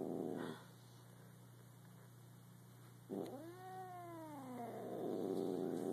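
Pet cat's noisy, snuffly sniffling breath, which stops about half a second in. A single long meow follows about three seconds in, rising then falling in pitch, and the rough sniffling starts again near the end.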